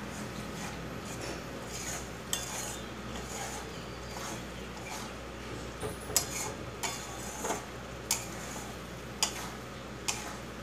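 Spatula stirring thick tomato chutney in a stainless-steel kadai, scraping and knocking against the pan. It gives a sharp clink about two seconds in, then roughly one a second through the second half, the loudest about six seconds in.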